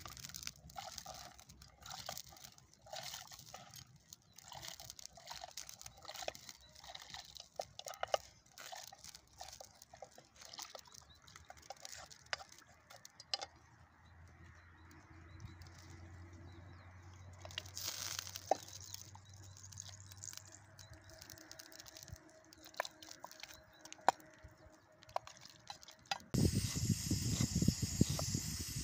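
A wooden spoon scraping and knocking in a metal pot as beans are spooned into a pot of soup over a wood fire: a quick run of small clicks and scrapes that thins out after about thirteen seconds. A louder hissing noise begins suddenly near the end.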